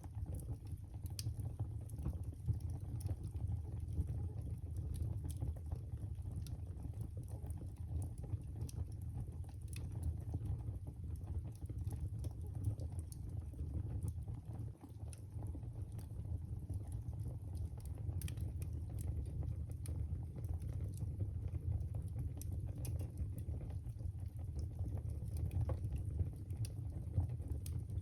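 Fire burning in a fireplace: a steady low rumble of flames with scattered sharp crackles and pops.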